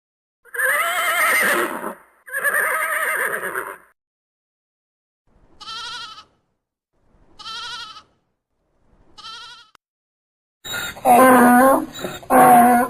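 A run of separate domestic animal calls: two long calls in the first four seconds, then three short, quavering bleats of a goat or sheep spaced about two seconds apart. A louder call from another animal starts near the end.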